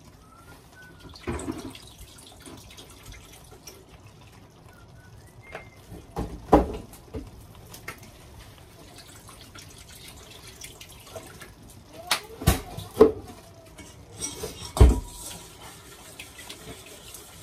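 Liquid seasonings, mirin and sake, being poured into a pot of meat sauce, with several sharp knocks in between, the loudest near the end.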